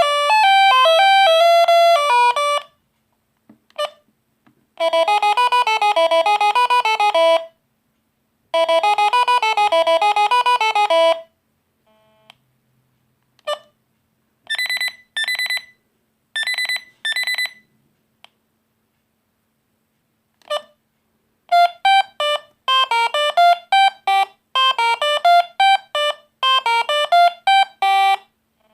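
Monophonic ringtones of an Alcatel One Touch Easy DB mobile phone, played one after another as buzzy beeping melodies with short pauses between them. One short tune plays twice, then come a few paired beeps, and a faster tune starts near the end.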